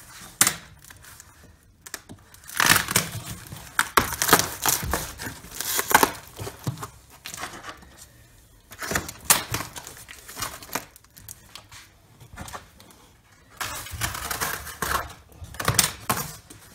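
Cardboard and brown packing tape being ripped and peeled off a long wrapped parcel by hand: irregular tearing and crinkling in bursts, with short quiet pauses between.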